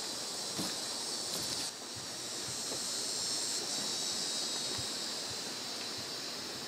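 Steady high-pitched chorus of insects buzzing in swampy Florida woods, dropping a little in level about two seconds in.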